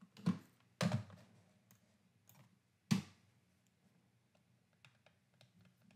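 Three short, faint clicks from working the computer: two close together within the first second, one more about three seconds in, then near quiet.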